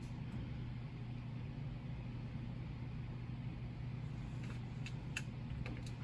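Steady hum of a sterile compounding hood's blower fan, with a few faint clicks of syringes and packaging being handled near the end.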